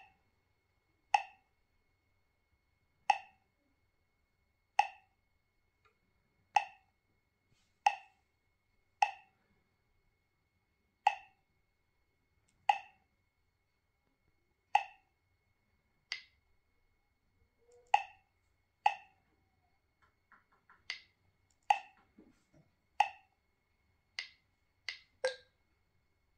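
Touchscreen GPS navigator's key-press clicks: a short, sharp electronic blip with each tap on the screen's buttons. There are about twenty, one every second or two, coming closer together near the end.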